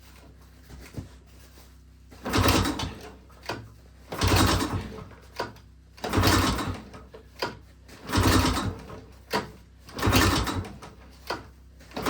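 Recoil pull-starter being yanked on a small Kohler engine that cranks but does not catch: five pulls about every two seconds, a sixth beginning at the very end, with a short tap between pulls. The engine is not yet getting fuel through its gravity-fed line, choke on.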